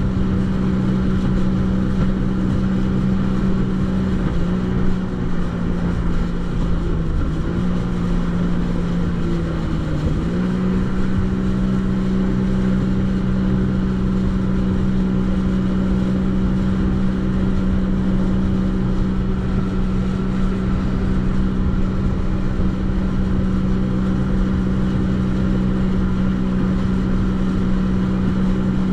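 Jet ski engine running steadily at speed: a strong, even drone that sags briefly in pitch twice, about seven and ten seconds in, over a low rush of wind and water noise.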